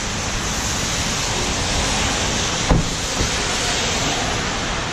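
Steady hiss of rain on the wet street. A single sharp thump about two and a half seconds in as a car door is shut.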